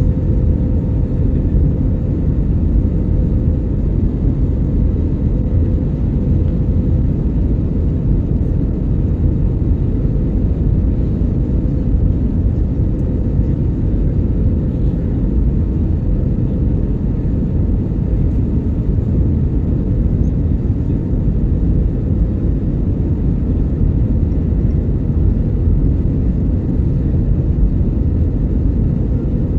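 Steady low rumble of an airliner's engines and airflow heard inside the passenger cabin, with a faint steady hum above it.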